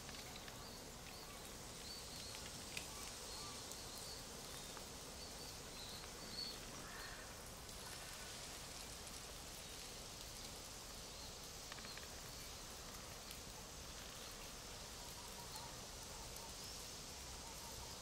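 Autumn forest ambience: a soft, steady rustle of leaves with faint high bird chirps, mostly in the first few seconds, and two light ticks.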